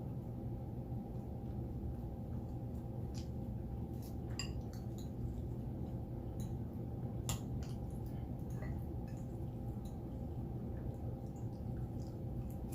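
Soft eating sounds: scattered light clinks and taps of cutlery on a dish and wet mouth sounds, with one sharper click a little past the middle, over a steady low hum.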